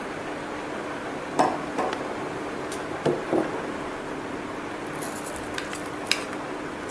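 Steel spoon knocking and clinking against a bowl and the rim of a glass jar as chopped fruit is spooned in: about five short knocks, the loudest about one and a half seconds in. A steady low hum runs underneath.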